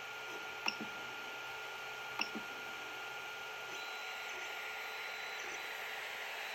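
Creality Ender 3 3D printer's cooling fans running with a steady hiss and a faint whine that shifts higher a little past halfway. Two sharp clicks, each with a softer echo click, come about a second and a half apart from the printer's control knob being clicked through the menu.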